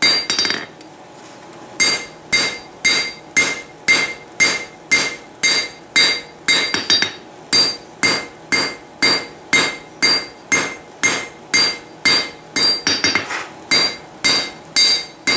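Cross-peen hammer blows on a hot railroad-spike blade over the anvil, about two strikes a second with a short pause about a second in, each blow ringing from the anvil. The steel is being drawn out and flattened into a froe blade.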